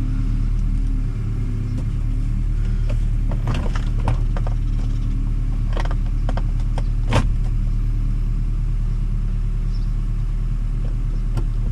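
Steady low rumbling hum, with a scatter of short clicks and knocks as long T30 Torx screws are started into the plastic of the door trim panel.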